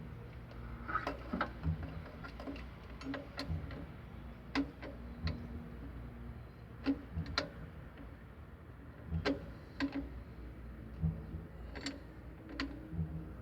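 Irregular sharp clicks and light knocks, roughly one a second and some in quick pairs, over a low steady background hum.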